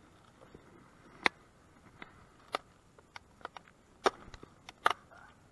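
Sharp clicks and taps from handling fishing gear and bait, a handful of louder clicks spread about a second apart with fainter ones between.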